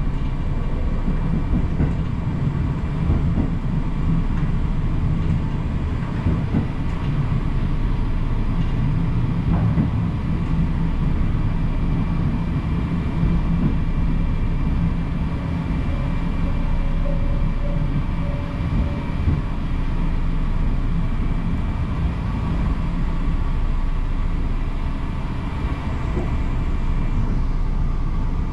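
Diesel train running along the line: a steady low engine drone mixed with wheel-on-rail rumble and occasional faint clicks.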